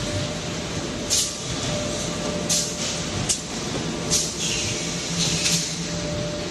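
Automatic corrugated-carton folder-gluer and stitching machine running: a steady mechanical din with a faint constant hum, broken by short hissing strokes roughly once a second.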